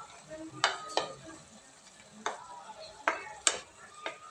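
A wooden spoon scraping and knocking against a dish as beans are tipped into a cooking pot, about half a dozen sharp knocks, with faint sizzling from the pot underneath.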